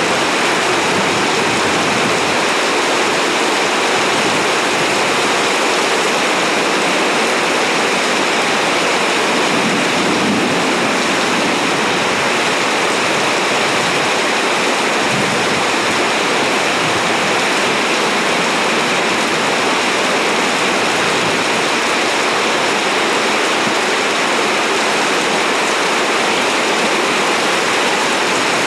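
Heavy rain pouring down in sheets, a loud steady hiss with no thunder claps.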